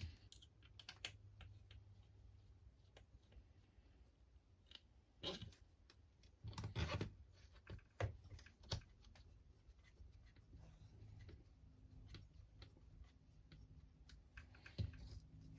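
Small RC truck parts being handled on a workbench: scattered light clicks and taps, with a few louder knocks in a cluster around the middle.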